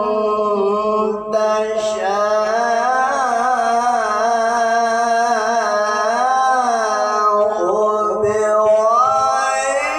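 A male qori reciting the Quran in the melodic mujawwad style, holding one long, richly ornamented phrase with the voice gliding and wavering in pitch and barely a pause for breath just over a second in.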